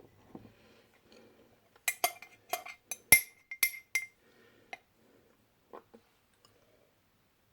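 Tableware clinking: a quick run of about eight sharp clinks with a short ring, bunched over two seconds, then a few fainter knocks.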